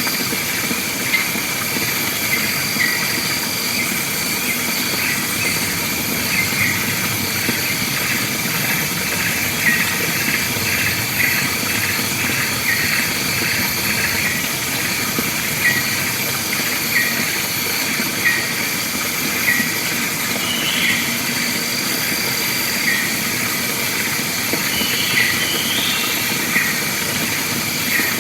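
Forest ambience: a steady, high-pitched drone of insects, with a bird repeating a short falling call about once a second and a few higher chirps near the end.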